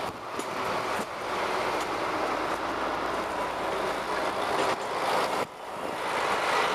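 Road vehicles driving past close by over a level crossing: a double-decker bus and then a coach, with steady engine and tyre noise. A short lull comes about five and a half seconds in, then the noise of the next vehicle builds.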